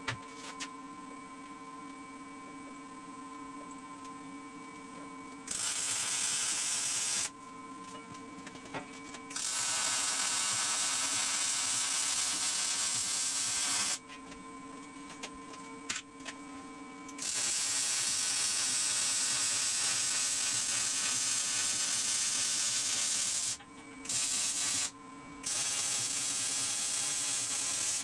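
Electric arc welding on a steel trailer frame: five runs of loud, steady welding hiss and crackle, the longest about six seconds and the shortest under a second, the first starting about five seconds in. Between the runs, a steady hum with a few tones.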